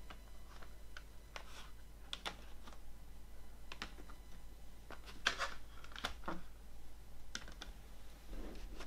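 Plastic CD jewel cases clicking and clacking against each other and the wooden tabletop as they are picked up and stacked: a run of irregular sharp clicks, the loudest about five seconds in.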